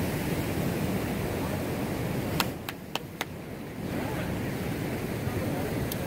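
Ocean surf washing against a rocky shore, a steady rush that dips for a second or so about two and a half seconds in. Four quick sharp clicks sound during the dip, and one more near the end.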